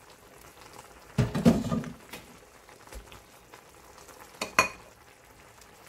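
Braised beef short ribs and vegetables simmering in an open pan, a faint steady bubbling. A clatter of cookware comes about a second in, and a sharp knock comes about four and a half seconds in.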